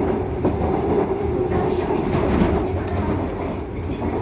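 Seoul Subway Line 2 train running between stations, heard inside the car: a steady low rumble of wheels on rail with a constant hum.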